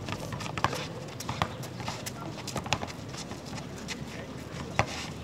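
Basketball bouncing on an asphalt court as it is dribbled: sharp knocks about every two-thirds of a second for the first three seconds, then one more loud bounce near the end.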